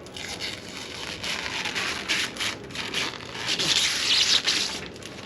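Rustling and scraping of packaging as a PC case is unpacked, with a busier stretch of rubbing a little past the middle.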